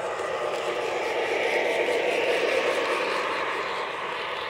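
Lionel LionChief ES44AC O-gauge model locomotive and its train running on FasTrack, a steady rolling hum of motor and wheels on track that grows louder as it passes close by, then eases off near the end.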